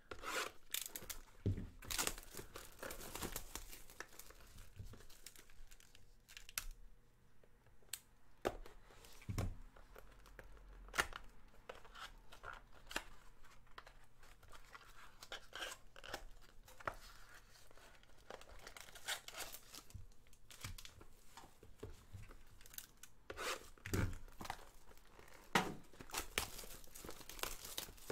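Cellophane shrink-wrap being cut with a box cutter and torn off trading card boxes: irregular bursts of plastic tearing and crinkling, with scattered clicks as the cardboard box flaps are opened.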